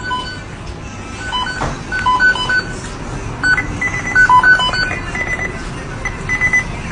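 Short electronic beeps at a few different pitches, in irregular clusters, over a steady low hum. The later beeps are higher-pitched.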